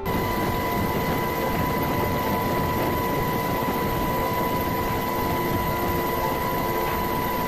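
Steady aircraft engine drone, a deep rumble with a high, even whine over it, heard from the aircraft filming from the air.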